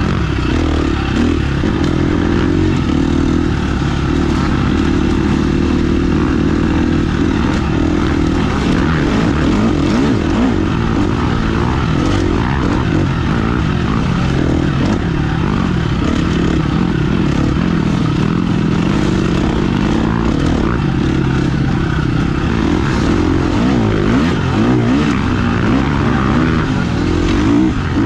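Off-road motorcycle engine running continuously, its pitch rising and falling with the throttle, with occasional short knocks.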